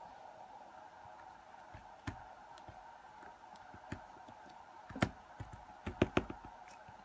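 Small metal lock parts clicking and tapping as pins are taken out of a disassembled lock cylinder: a few scattered clicks, with a cluster of louder ones about five to six seconds in, over a steady faint hum.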